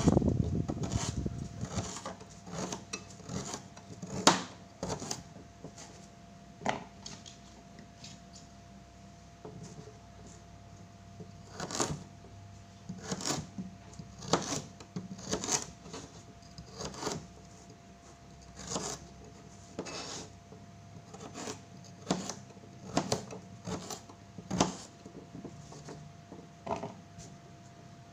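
Kitchen knife chopping a carrot on a plastic cutting board: sharp knocks of the blade against the board at irregular intervals, about one every second or two. A low rumble fades out over the first two seconds.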